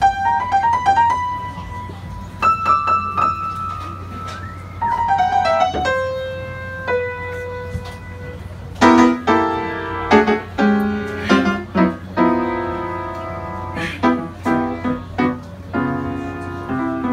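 Piano playing a song introduction: scattered single notes and short runs at first, then rhythmic repeated chords from about nine seconds in. A faint steady low hum sits underneath.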